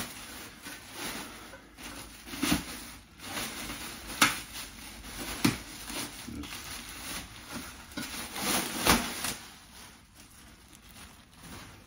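Clear plastic wrapping crinkling and rustling as it is pulled off a piece of armour, with several sharper crackles.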